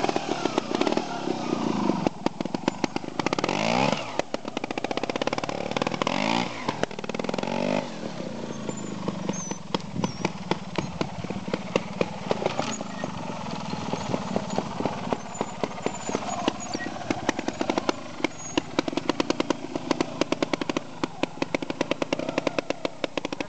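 Trials motorcycle engine pulling at low revs as the bike climbs a steep, loose slope, with a fast popping exhaust beat and throttle blips that rise and fall in pitch, notably around four and seven seconds in.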